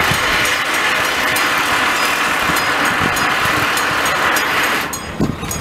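Steady rushing vehicle noise that eases off about five seconds in.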